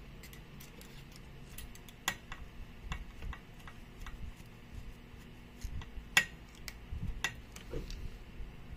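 Metal screwdriver shafts and tips clicking against screws and metal parts inside an amplifier chassis: irregular sharp clicks, the loudest about two and six seconds in.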